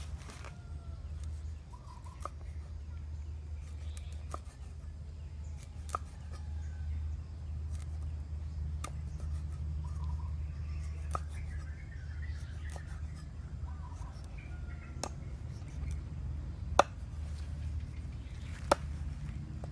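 Large kitchen knife chopping eel pieces on a wooden cutting board: single sharp chops spaced irregularly a second or more apart, the two loudest near the end, over a steady low hum.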